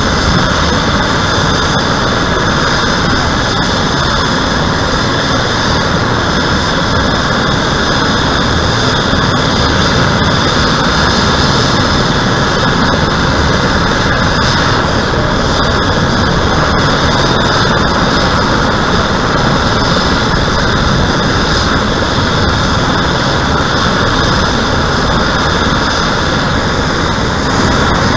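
Airbus H135 (EC135) air ambulance helicopter running on the ground, its turbines giving a steady high whine over a broad, even rush of engine and rotor noise.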